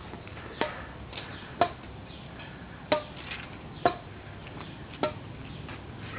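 Badminton rackets hitting a shuttlecock back and forth in a rally: five sharp hits, about one a second.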